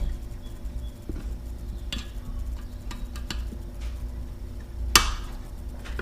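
Light metallic clicks and taps of outboard recoil starter parts being handled and fitted together, with a sharper clack about five seconds in, over a steady low hum.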